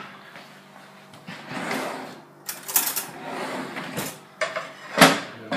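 Metal kitchen pans and a fork being handled on a gas hob: a short scrape, then several sharp clinks and knocks of metal on metal.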